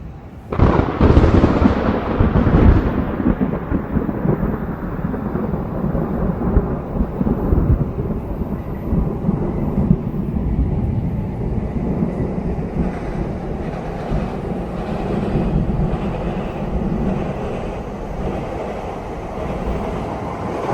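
A thunderclap: a sudden loud crack about half a second in, followed by a long low rumble that keeps going.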